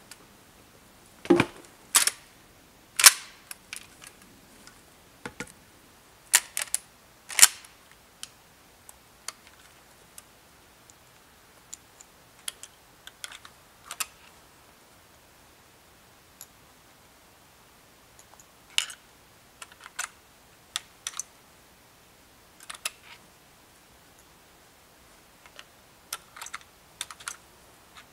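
A lever-action rifle being handled and loaded by hand: scattered sharp metallic clicks and clacks, a few louder ones in the first seven or eight seconds, then lighter, sparser clicks through the rest.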